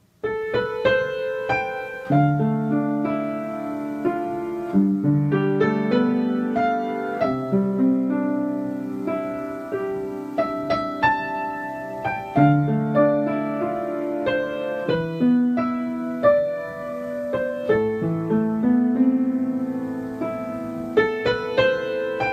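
Background piano music: a gentle melody with held chords, starting just after the beginning.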